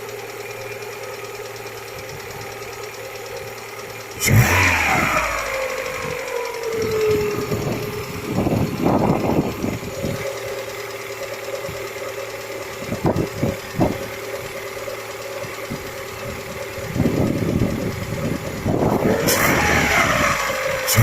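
Lada Priora's VAZ-21126 1.6-litre sixteen-valve engine idling and being revved: a sharp rev about four seconds in and another near the end, each with the pitch falling back to idle, and shorter throttle blips in between. It is revved to bring out a knock in the engine.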